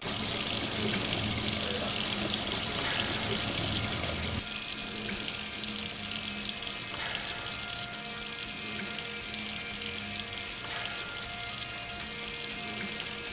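Kitchen tap running steadily into a stainless steel sink as hands are rinsed under the stream, a little quieter from about four seconds in.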